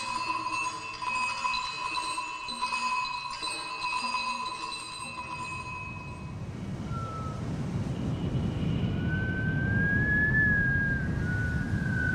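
Ambient soundtrack: sustained, bell-like chiming tones that fade out about five seconds in. They give way to a low, rushing noise with a single thin, high tone that wavers and glides slowly up and down.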